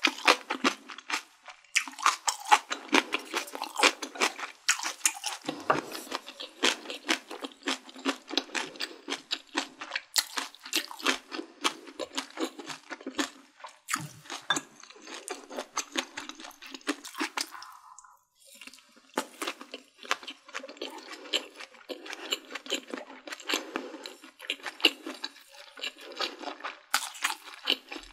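A person chewing food up close to the microphone, with a dense run of crunchy, wet bites and mouth sounds and a brief pause about two thirds of the way through.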